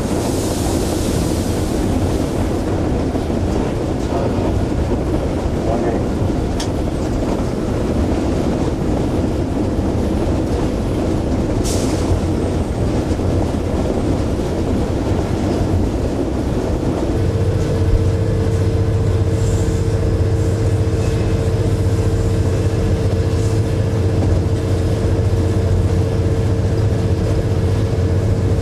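Cab noise of a GO Transit EMD F59PH diesel-electric locomotive under way: its twelve-cylinder 710 prime mover running, with wheel-on-rail noise and a couple of sharp clicks. About seventeen seconds in, a steady hum comes up stronger and holds.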